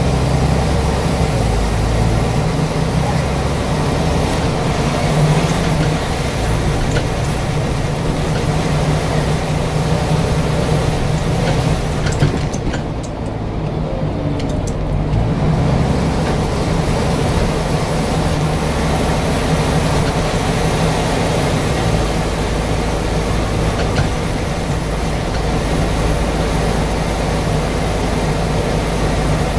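Scania N94UD double-decker bus's diesel engine running, heard from inside the passenger saloon as a steady, loud drone with road and cabin noise.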